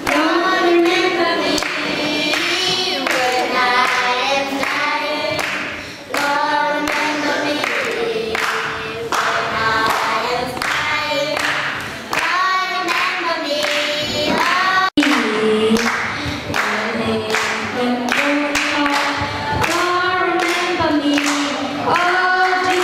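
A group of young children singing a song together into microphones, their voices amplified through a PA. The sound cuts out for an instant about two-thirds of the way through.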